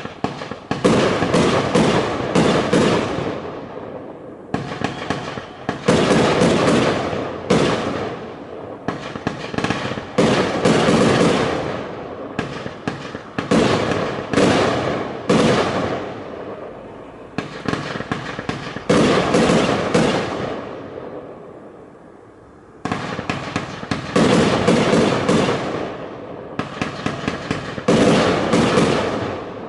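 Aerial fireworks bursting overhead: volleys of rapid, sharp bangs, each volley fading away, with brief lulls between them.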